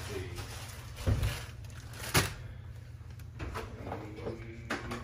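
Kitchen handling noises over a steady low hum: a dull thump about a second in, a sharp click a second later, and a couple of lighter knocks near the end.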